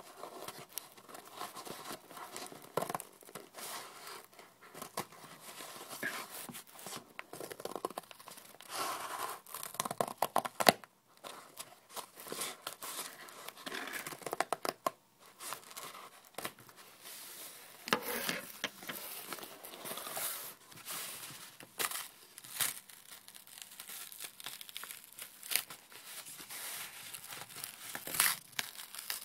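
Scissors cutting through corrugated cardboard in a run of irregular crackling snips. Toward the end the cardboard is ripped apart by hand.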